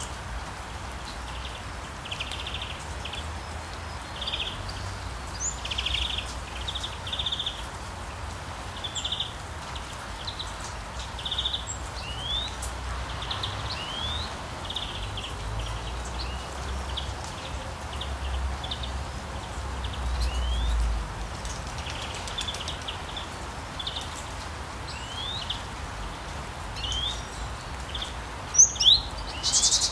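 Forest birds calling, with short repeated chirps and quick rising notes scattered throughout, over a steady hiss of rain and a low rumble. Near the end come two louder, sharper calls.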